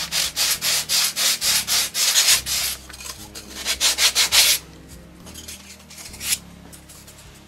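Sanding block rubbed back and forth over a green foam block in quick strokes, a scratchy hiss on each stroke, shaping the foam to size; the sanding pauses briefly after under three seconds, goes on for about another second, then stops about halfway through, followed by a light knock.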